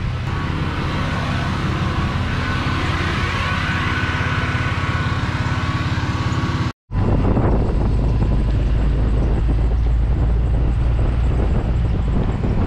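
Fuel transfer pump running steadily with a faint whine, drawing gasoline out of a boat into a gas can. About seven seconds in it cuts off, and a moving vehicle's low engine rumble and road noise take over.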